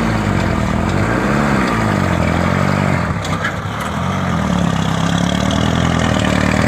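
Truck engine working hard to climb a hill under throttle. The engine note rises and falls repeatedly as the revs surge and sag, with a brief dip about three seconds in.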